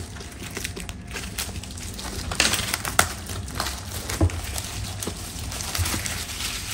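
Clear plastic wrap crinkling and crackling as it is pulled off a cardboard product box, with a soft knock or two of the box against the table.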